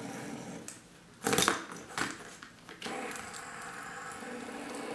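Fidget spinners clicking and clattering together as they are handled, loudest about a second in, with a steady whir from a spun stack of spinners before and after.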